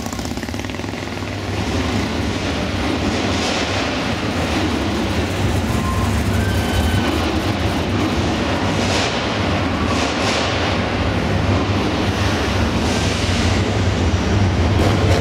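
Muscle cars and hot rods driving past slowly, with a steady deep engine rumble and a few louder swells as individual cars go by.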